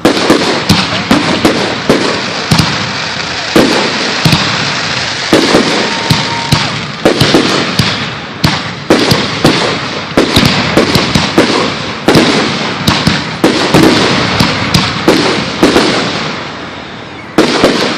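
Aerial fireworks bursting overhead in a rapid, irregular barrage: loud sharp bangs several times a second, each followed by rumbling echo and crackle.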